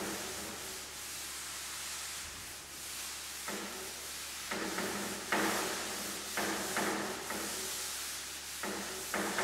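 Cloth duster wiped across a chalkboard in a series of short rubbing strokes, mostly in the second half after a quieter stretch.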